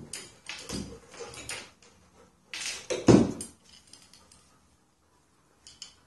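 Metal lamp rod, its wires and tools being handled on a tabletop: a run of knocks and clatter, the loudest knock about three seconds in, then a few faint ticks.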